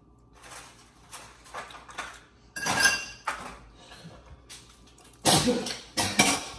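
A utensil scraping and clinking against a mixing bowl of cookie batter in short bursts. A loud sneeze comes near the end.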